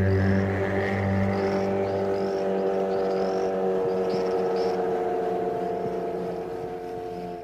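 Benchtop table saw's motor and blade switched off and winding down: the low hum stops about two seconds in, then the running tone falls slowly and fades.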